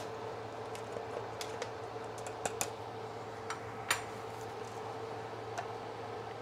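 Scattered light clicks and taps of containers and lids being handled while grated Parmesan cheese is measured out, the loudest about two and a half and four seconds in, over a steady faint hum.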